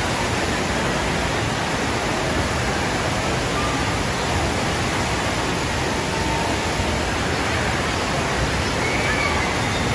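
Steady rush of water from a FlowRider surf simulator, its sheet of water pumped at speed up the padded slope.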